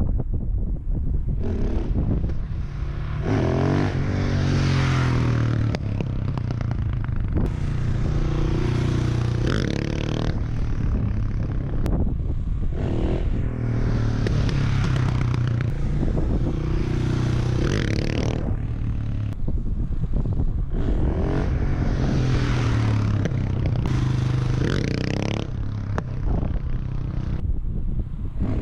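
Husqvarna 701 supermoto's big single-cylinder engine through a Wings exhaust, revving up hard several times as the rider accelerates for wheelie attempts. Wind buffets the microphone.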